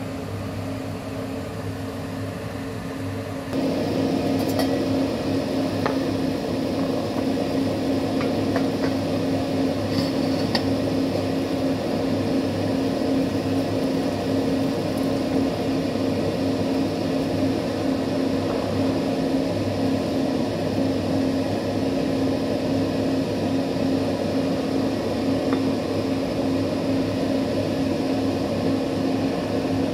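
Kitchen range hood extractor fan running with a steady hum and hiss, which steps up in loudness about three and a half seconds in and then holds steady.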